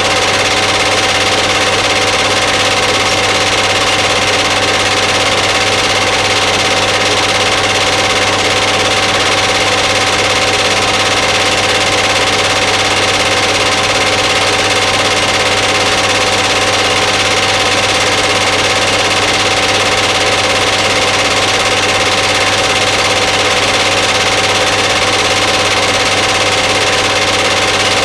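A small machine running steadily with a constant hum, unchanging throughout.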